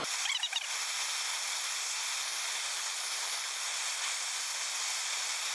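Small handheld blowtorch running with a steady hissing flame.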